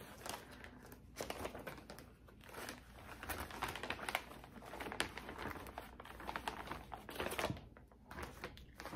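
Plastic and paper crinkling and rustling as they are handled, in an irregular run of crackles.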